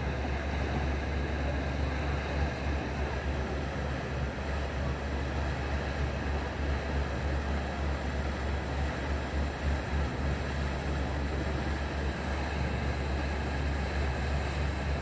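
Motor yacht's engines running steadily at cruising speed: an even low drone under a steady rush of wind and water.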